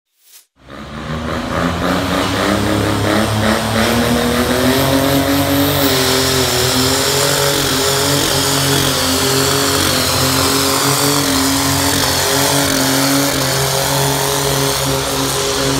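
Small turbocharged indirect-injection diesel engine of a pro-stock diesel garden pulling tractor (75 cubic inches or less, on about 50 lb of boost) running hard under load as it pulls the weight-transfer sled. The sound comes in about half a second in and builds quickly, its pitch climbing a little over the first few seconds and then holding steady and loud.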